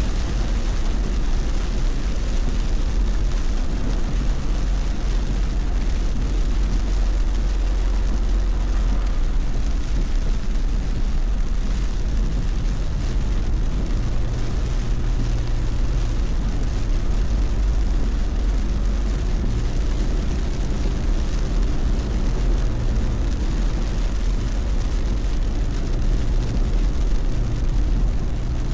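Car driving at speed on a wet expressway in heavy rain: a steady low road and engine rumble under the even hiss of rain and wet tyres, with a low hum that swells and fades a few times.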